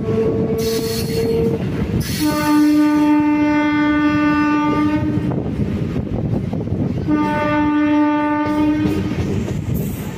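A train horn blows two long steady blasts, the first about three seconds and the second about two. Underneath is the constant running rumble of an electric MEMU train heard from aboard.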